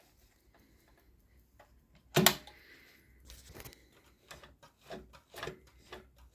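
Pfaff 204 sewing machine being handled: one loud clunk about two seconds in, then a run of irregular light clicks and knocks.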